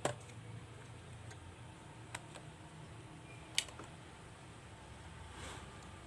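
A few sharp plastic clicks from a laptop being taken apart, as the flex-cable connector latches are released and the top case is worked loose. The loudest click comes about three and a half seconds in, over a faint low hum.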